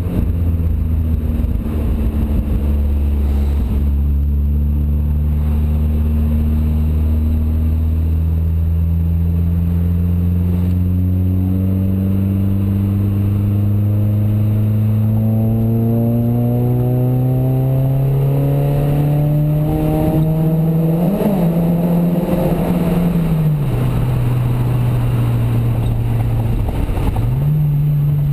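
Chevy Cobalt's Ecotec 2.2 L four-cylinder with a Corsa cat-back exhaust, heard from inside the cabin while driving. The engine note climbs slowly and steadily for about twenty seconds, drops back near the end, then rises again.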